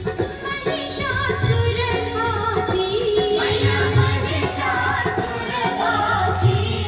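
Background music: a song with a wavering sung melody over sustained instrument notes and a steady low beat, in the style of Indian film or devotional music.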